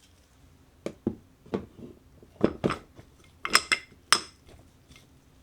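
Marbles clattering down a plastic marble-run track: a string of separate clicks and knocks, with the loudest, ringing clinks about three and a half and four seconds in.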